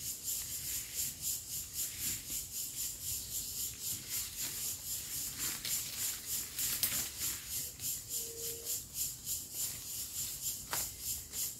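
Insects chirping in a steady, rapid, high-pitched pulsing rhythm, with a brief low steady note about eight seconds in.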